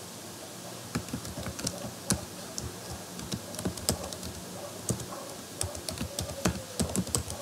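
Typing on a computer keyboard: irregular key clicks starting about a second in, over a faint steady hiss.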